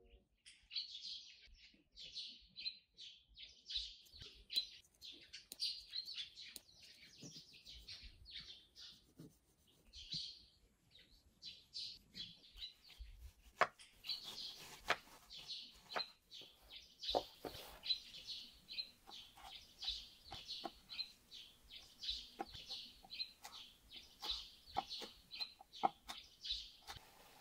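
Small birds chirping, a run of short high chirps repeating all through, with scattered light clicks and taps from about halfway through.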